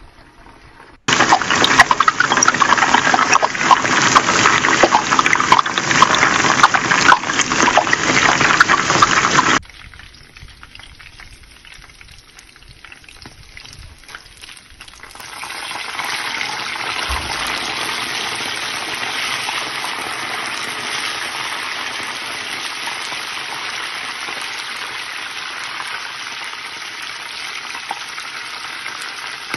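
Whole Cornish hens frying in hot oil, sizzling and crackling. The sizzle is very loud and dense from about a second in to about ten seconds, drops away for a few seconds, then settles into a steady, moderate sizzle.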